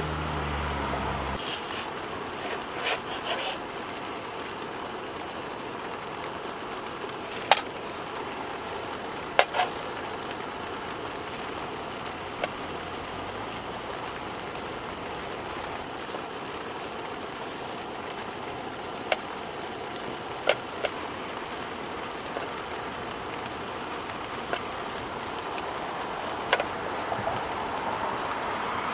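Kitchen knife slicing raw beef on a wooden cutting board, its blade clicking against the board now and then, along with sharp clicks as the meat strips are handled and gathered into a wooden plate. A steady rushing background noise runs underneath.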